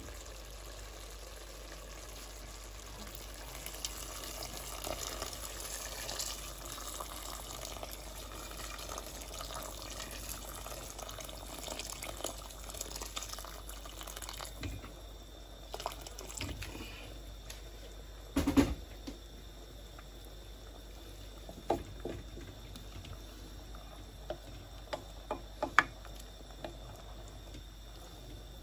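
Hot water poured in a stream into a stainless steel pot of simmering curry, splashing into the sauce through the first half. After that, a wooden spoon stirs the pot, with a few sharp knocks against the steel, the loudest about two-thirds of the way through.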